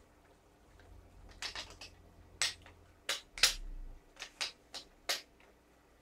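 Around eight sharp clicks and taps at irregular spacing, the loudest about halfway through: small parts of a WE M4 gas blowback airsoft rifle being handled and fitted together during assembly.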